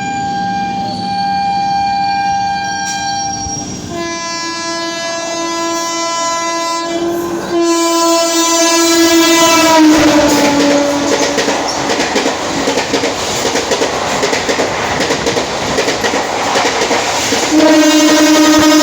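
Indian Railways WAP-4 electric locomotive sounding its horn in long blasts as it approaches at speed, the horn's pitch dropping as it passes. The rushing rattle and clickety-clack of its ICF coaches going by at about 110 km/h follows, and the horn sounds again near the end.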